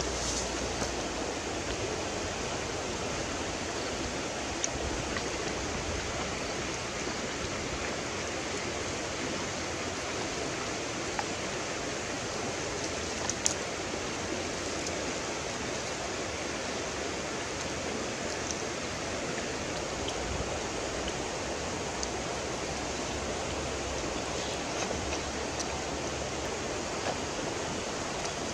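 Steady rush of a river flowing over stones, with a few faint small clicks, the sharpest about halfway through.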